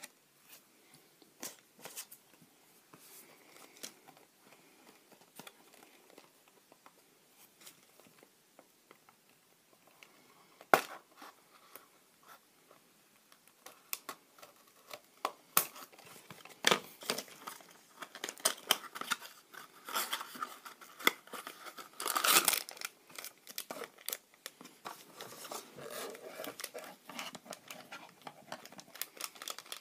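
Toy unboxing by hand: scissors and a cardboard blind box handled with scattered clicks and taps, one sharp knock about eleven seconds in, then a foil blind-bag crinkled and torn, loudest a little past the middle.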